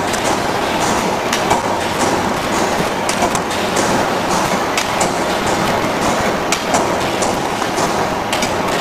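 Brick-making machinery running: belt-driven press and mixer machinery making a steady mechanical din, with irregular sharp clacks and knocks on top.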